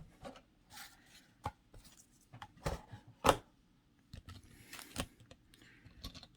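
Toy monster trucks and their plastic packaging being handled and tipped out: scattered sharp clicks and knocks, the loudest about three seconds in.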